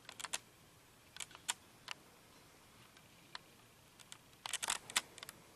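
Scattered light clicks and taps, with a quick flurry of them near the end.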